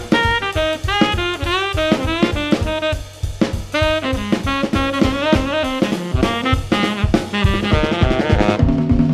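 Tenor saxophone playing quick jazz lines of short notes, many scooped up into pitch, over a drum kit keeping time with sticks. Near the end the saxophone moves to lower, longer notes.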